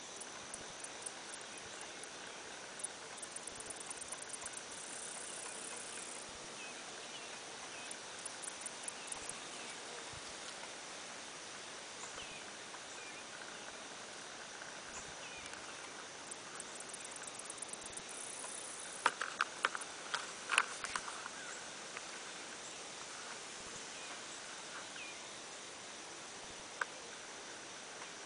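Garden insect chorus: a steady high-pitched drone with repeated bursts of rapid high ticking from singing insects. About two-thirds of the way through comes a short cluster of louder clicks and taps, with one more click near the end.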